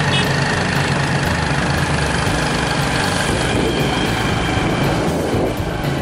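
Motorbike engine running steadily with road and wind noise, heard from on board while riding.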